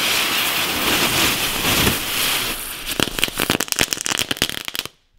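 Broekhoff Fire Eyes ground spinner firework burning on the ground with a loud hiss that turns into a dense crackle of sparks after about three seconds. It stops abruptly near the end.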